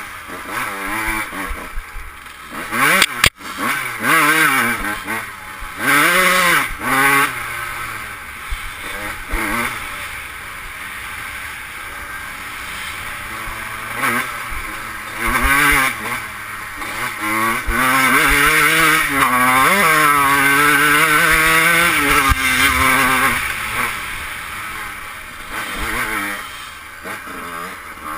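Yamaha YZ125 single-cylinder two-stroke engine revving up and down again and again, with a long stretch held at high, wavering revs in the second half. There is a sharp knock about three seconds in.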